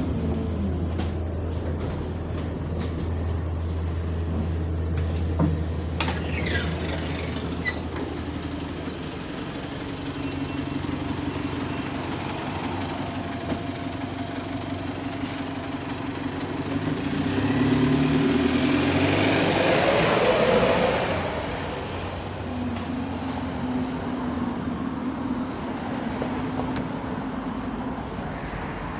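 Single-deck bus engine running at a steady low hum, then revving up as the bus pulls away, loudest about two-thirds of the way through, before fading into passing road traffic.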